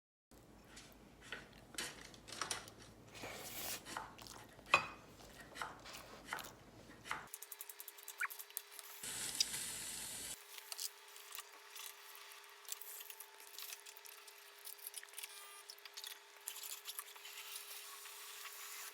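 Light clicks, taps and rubbing of small objects being handled, busiest in the first seven seconds. A short hiss comes about nine seconds in, and a faint steady hum runs under the sparser ticks that follow.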